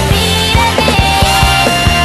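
Background music with a steady drum beat, about four hits a second, under sustained melodic lines.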